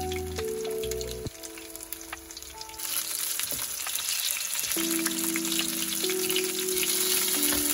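Breaded pieces sizzling in hot oil in a frying pan as they are turned with a wooden spatula and fingers, the sizzle growing louder about three seconds in. Background music plays underneath.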